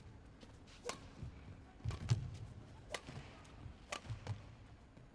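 Badminton rally: rackets striking the shuttlecock about once a second, each hit a sharp crack, with low thuds of the players' footwork on the court.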